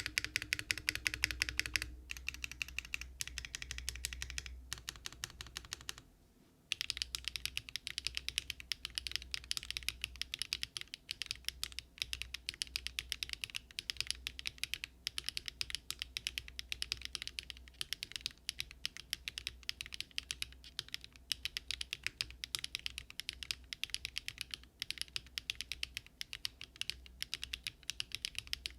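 Typing on a Daring Run Polygon-7 mechanical keyboard built with Luminkey Astral switches, no foam and an aluminium plate: a stream of crisp keystroke clacks. There is a brief pause about six seconds in, then fast, continuous typing.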